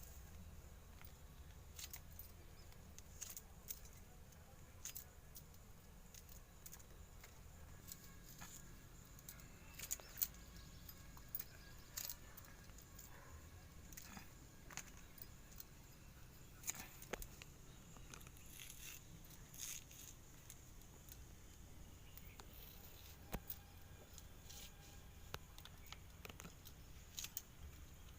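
Faint, irregular clicks and light taps, scattered throughout, over a low steady hum.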